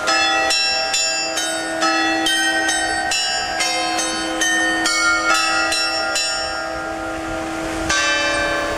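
A chime of small metal bells hung on an open-air frame playing a quick tune, about three struck notes a second, each note ringing on over the next. The strikes pause for a moment near the end while the bells keep ringing, then start again.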